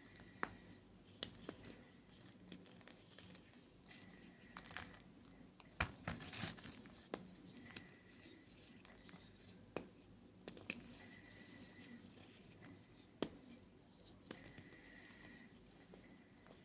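White Reform gym chalk being crushed and crumbled by hand: faint, scattered crunches and crackles. One sharper snap comes about six seconds in.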